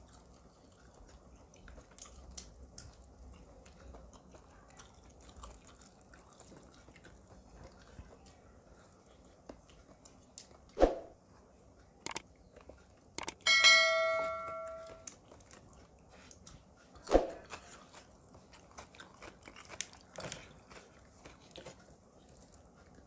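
Close-miked eating: faint chewing and small mouth clicks, with two dull thumps. Once, a sharp clink of tableware rings on for about a second and a half.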